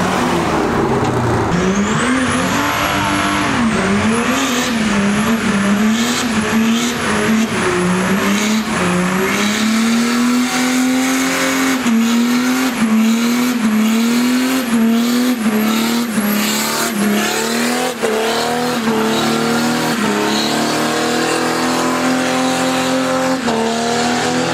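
Car engine held at high revs during a burnout, its pitch dipping and climbing again about once a second as the throttle is worked, with the tyres spinning and squealing against the road.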